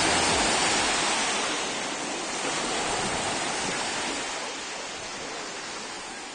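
Steady rushing noise, even and without any tone, that slowly fades out; the last low notes of the music die away in the first half-second.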